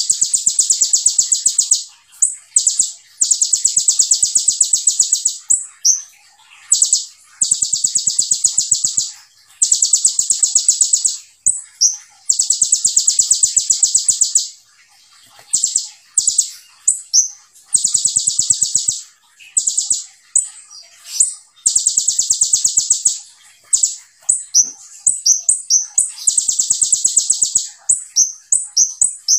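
Kolibri ninja sunbird singing in full voice: high, very rapid trills of a second or two each, repeated with short gaps, the dense rapid-fire 'tembakan' song. Near the end it breaks into quicker, choppier twittering chirps.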